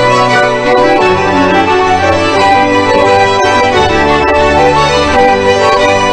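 Instrumental background music of sustained, held chords over a steady bass line, the chords changing about once a second.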